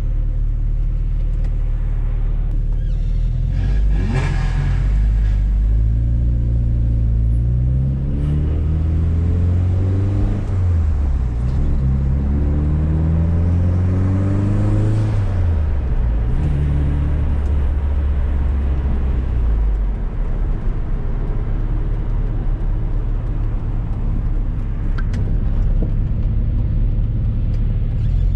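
Fiat Coupe 16V Turbo's turbocharged four-cylinder engine under hard acceleration, heard from inside the cabin: the revs climb twice and drop at each gear change, then settle to a steadier cruise in the second half. A brief hiss about four seconds in.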